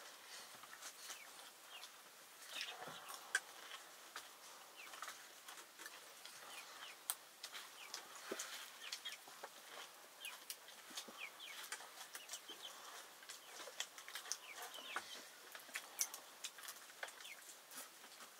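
Chickens clucking faintly, with many short chirps and scattered sharp clicks throughout.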